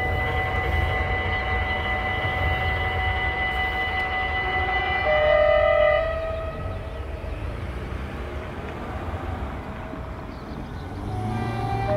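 Train horn in a long, steady blast that steps down to a lower note about five seconds in and stops about a second later, over the low rumble of an NS Koploper electric train running across a steel truss bridge. Near the end the rumble rises again and another horn blast begins.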